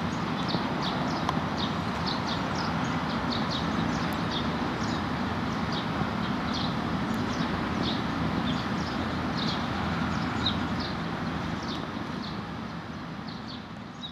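Japanese white-eyes chirping, many short high calls several a second, over a steady low noise that fades away near the end.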